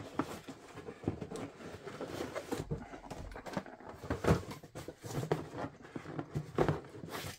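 Cardboard box and packaging being handled by hand: irregular rustling, scraping and light knocks, with a couple of sharper knocks about four and six and a half seconds in.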